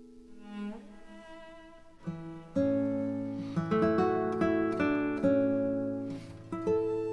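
Background music: plucked string instruments, guitar-like, playing a melody over a sustained low bass note.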